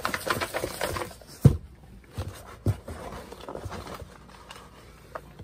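Paper tickets rattling and sliding about inside a cardboard box being shaken, then one sharp thud about a second and a half in as the box is set down. Softer rustling and a few light knocks follow as a hand rummages among the tickets.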